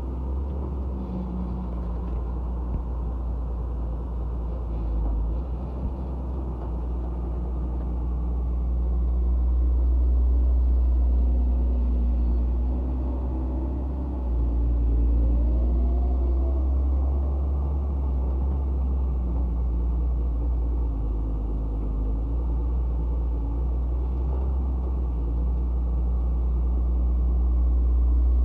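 Heavy diesel machinery running with a steady low rumble as an excavator loads a dump truck, with one brief rise and fall in pitch about halfway through.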